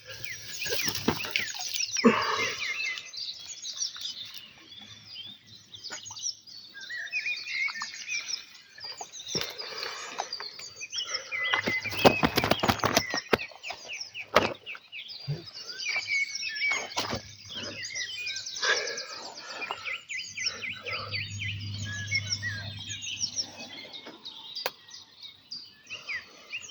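Small birds chirping and singing throughout in quick, high notes. Around twelve seconds in, a cluster of close rustles and knocks is the loudest sound.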